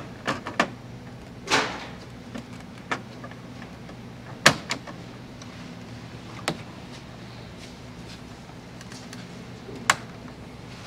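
A plastic radiator grille screen being worked into a car's front intake: a string of sharp plastic clicks and knocks, with a brief scrape about a second and a half in and the loudest click about halfway through, over a steady low hum.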